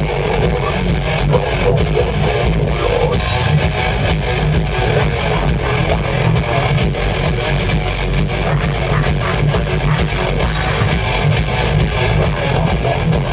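A rock band playing live, loud and without a break: electric guitars with drums hitting throughout.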